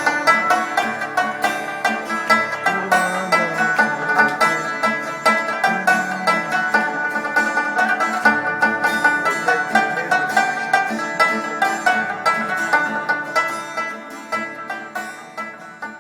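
Rabab, the Afghan plucked lute, playing a fast melody of rapidly plucked notes, growing quieter over the last few seconds as the piece dies away.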